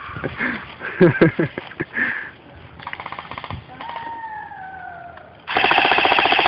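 Airsoft guns firing full-auto bursts: a short burst about three seconds in, then a longer, louder burst of rapid, even shots from about five and a half seconds. Some sharp cracks and shouting come about a second in.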